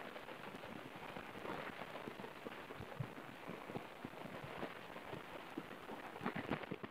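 Light rain or drips pattering on the trail camera: a steady, irregular crackle of small ticks, with one sharper tick about three seconds in and a cluster of louder ticks near the end.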